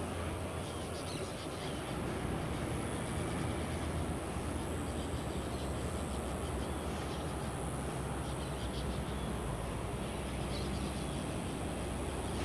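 Outdoor rainforest ambience: a steady low rumble, with a faint high insect drone that swells and fades every few seconds.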